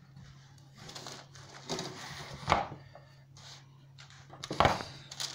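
Scattered knocks, scrapes and rustles of a round cake tin handled with oven gloves, with two sharper knocks about two and a half seconds in and near the end as the tin hits the worktop. A low steady hum runs underneath.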